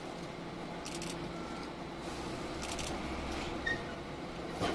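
Parked Shizuoka Railway 1000 series electric train humming steadily at standstill, with two brief hisses about one and nearly three seconds in and a click near the end.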